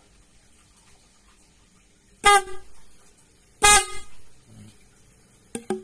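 PIAA OTO Style 12 V snail horn, the 400 Hz low-tone unit, sounding two short blasts about a second and a half apart, then two very brief chirps near the end. It is fed one horn at a time without a relay.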